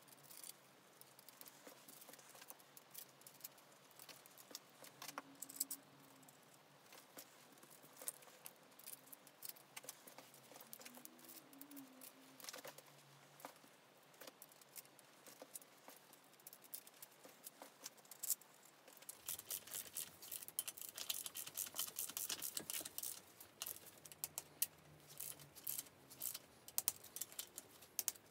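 Faint, irregular small clicks and taps of hand work with tools and small parts, turning into a quicker run of clicks about twenty seconds in.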